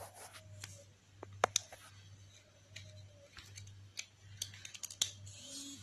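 Scattered sharp plastic clicks and taps as a smartwatch and its magnetic charging cable are handled and the charger is fitted to the back of the watch, over a low steady hum.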